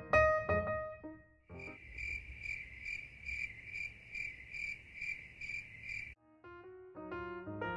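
Cricket chirping in an even rhythm of about three chirps a second, starting and stopping abruptly, between stretches of piano music.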